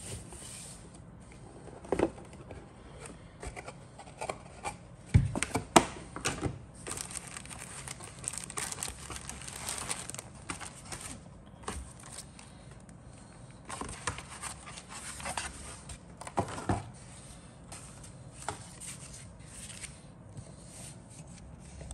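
A clear plastic bag of model-kit parts sprues crinkling as it is handled, in stretches, with a few sharp knocks of the box and parts being moved, the loudest about five to six seconds in.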